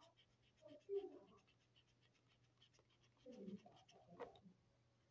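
Felt-tip marker scratching faintly on a small paper notepad as it colours in. Two brief, faint vocal sounds come through, about a second in and again past three seconds.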